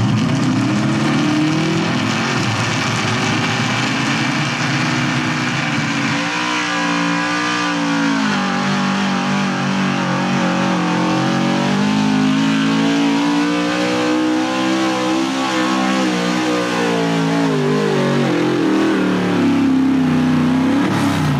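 A square-body Chevrolet pickup's engine running hard while dragging a weight-transfer pulling sled, its pitch rising and falling several times and dropping near the end.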